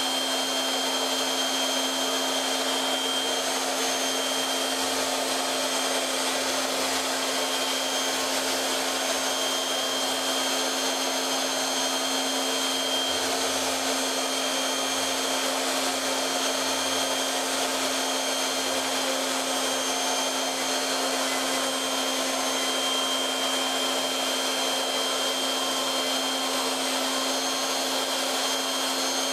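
CNC mill spindle running steadily while a small end mill rough-cuts a pocket in a block of foam: an even whir and hiss with a constant hum and a faint high whine.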